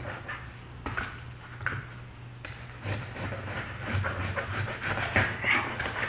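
Hands handling a frozen food item: scattered knocks and clicks with rustling, over a steady low hum.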